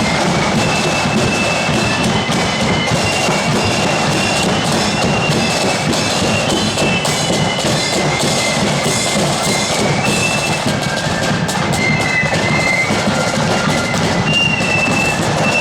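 Marching flute band playing: high flutes carry a melody over constant side drums and bass drum.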